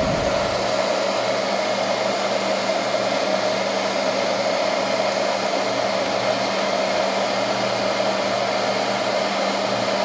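Hand-held hair dryer running steadily: a constant rush of air with a low hum. It is blowing hot air onto a microwave oven's plastic door-switch holder to soften its stiff clips.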